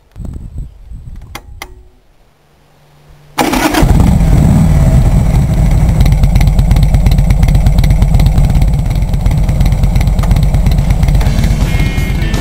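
Harley-Davidson 883 Evolution V-twin motorcycle engine being started: two switch clicks, a brief starter whir, then the engine catches about three seconds in and runs loud and steady.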